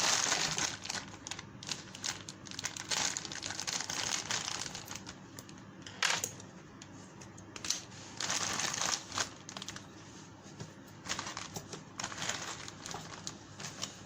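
Plastic parts bags and packaging crinkling and rustling in the hands in irregular bursts with small clicks, as the bagged parts of an RC truck kit are unwrapped and handled.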